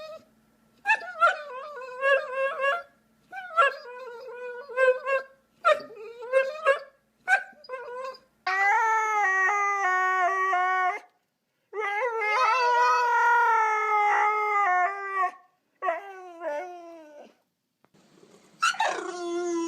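A dog howling and whining in a series of wavering, pitched calls: short yowls at first, then two long drawn-out howls in the middle, then shorter whines.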